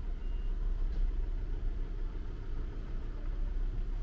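Camper van's diesel engine idling with a steady low rumble while the van manoeuvres slowly at a fuel pump. A short high beep sounds just after the start.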